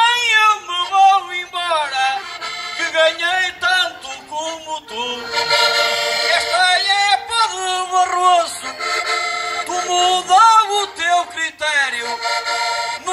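Accordion playing a Portuguese cantares ao desafio tune, with sustained, wavering chords and melody.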